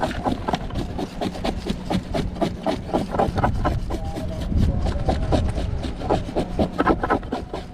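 A fish being scaled: quick, uneven scraping strokes, several a second, as the scales are scraped off its skin.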